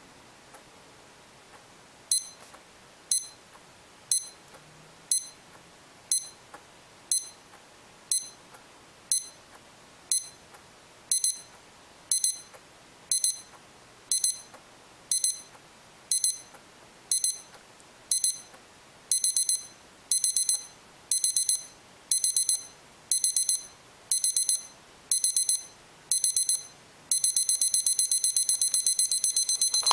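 Sharp SPC500 digital alarm clock's alarm going off with high electronic beeps that quicken in stages: single beeps about once a second, then pairs, then quick bursts, then a continuous rapid beeping that is cut off near the end. It is an escalating alarm that gets progressively louder and more annoying.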